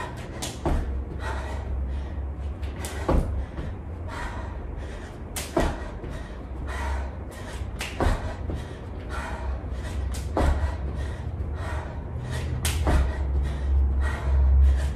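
Sneakered feet thudding on a rug-covered wooden floor during knee-tuck jumps and low jumping jacks, roughly one landing a second, over a steady low rumble.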